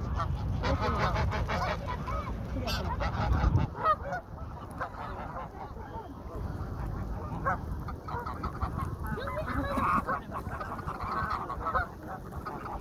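Several ducks calling, with many short, overlapping nasal calls throughout. A low rumble sits under them for the first few seconds.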